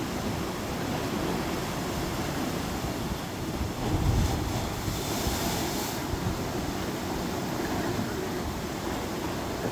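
Ocean surf crashing into a rocky cliff inlet: a steady rush of waves, with a louder crash about four seconds in followed by a couple of seconds of hissing spray.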